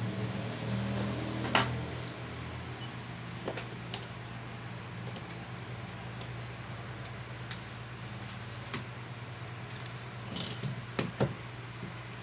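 Small metal repair tools and phone parts clicking and clinking: scattered light clicks, with a louder cluster of clinks about ten seconds in, over a low steady hum.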